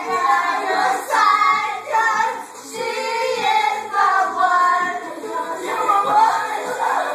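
Voices singing, a child's among them, with music.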